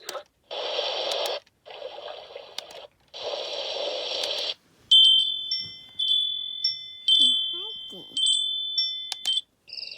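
An alarm clock's built-in sleep sounds playing through its small speaker. First come three short bursts of hissing noise. From about five seconds in, a wind-chime recording plays with ringing high notes, and it cuts off just before the end.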